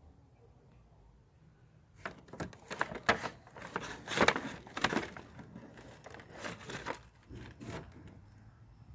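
Knife scraping and cutting at a nopal cactus paddle to peel off its spines and skin: a run of irregular sharp scrapes and crackles starting about two seconds in, thinning out near the end.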